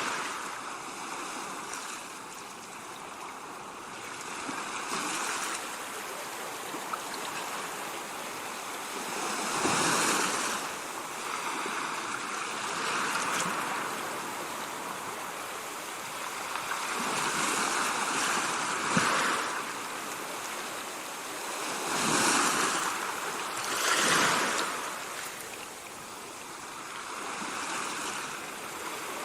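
Ocean waves breaking and washing in: a steady rush of surf that swells louder with each bigger wave, several times over.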